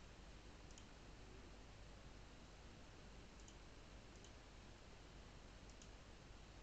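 Near silence: faint room hiss with four faint double clicks spread through it.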